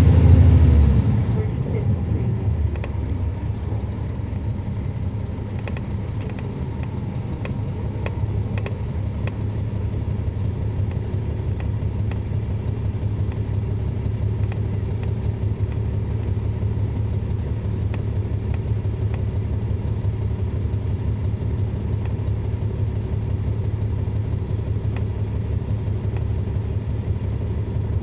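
Caterpillar C13 diesel engine of a NABI 40-foot transit bus heard from the rear seat. It is loud at the start, with a high whine falling away over the first couple of seconds, then settles into a steady low drone.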